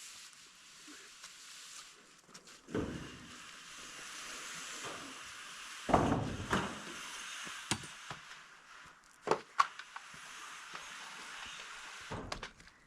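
A roofing panel sliding and scraping across the roof framing as it is pushed into place, with several hollow knocks as it bumps the timbers.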